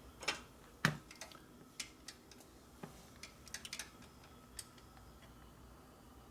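Scattered light clicks and taps of small metal parts and hand tools being handled, with a sharper knock about a second in and a quick run of clicks around three and a half seconds.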